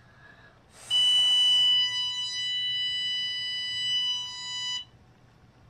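A puff of breath blown into the sensor hole of an Our K9 Garnet anti-bark collar, and the collar answers with a steady, high electronic beep held for about four seconds that cuts off suddenly. At this fifth puff of the test sequence the beep is the collar's signal that it is also giving a small shock.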